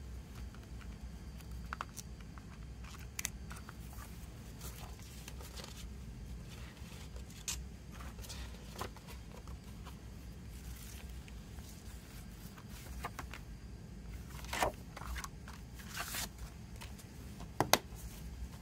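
Hands handling a plastic disc case and its paper insert: scattered light clicks, taps and paper rustles over a steady low hum, with the loudest clicks and swishes near the end.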